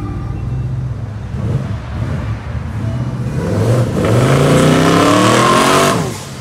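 Twin-turbo 1971 Chevrolet Impala accelerating hard past, its engine pitch climbing steeply for about two seconds with a loud rush of exhaust and turbo noise, then easing off near the end.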